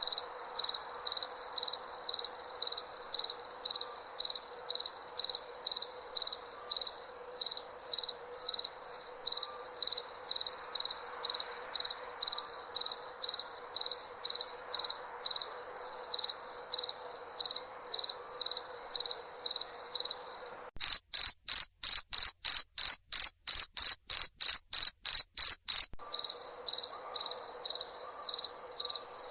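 Cricket chirping in a steady, regular rhythm, about two to three chirps a second. About 21 seconds in, the background hiss drops away for some five seconds and the chirps come sharper and a little quicker, then the earlier chirping resumes.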